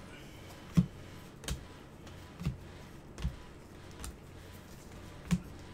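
Bowman baseball cards flipped through one at a time in gloved hands, each card giving a short sharp tap as it is moved off the stack. There are about six taps, roughly a second apart.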